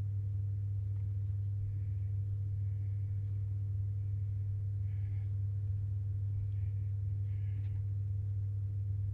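A steady low hum throughout, with a few faint, soft scratches and taps of knitting needles and yarn as stockinette rounds are knitted.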